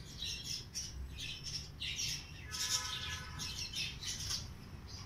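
Birds chirping and squawking in quick, harsh high-pitched bursts, several a second, with one longer buzzy call about halfway through.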